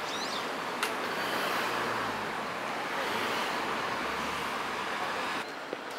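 Distant city road traffic, a steady hiss, with a low engine hum rising briefly about four seconds in.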